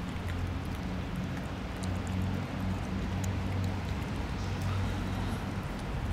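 A cat eating wet food from a foil tray, with a few faint clicks of chewing and licking, over a steady low hum.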